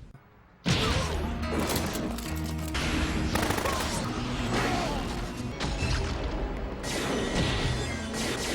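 Anime fight-scene soundtrack: after a short hush, dramatic music comes in suddenly, layered with crashing impacts and rapid bang-like sound effects.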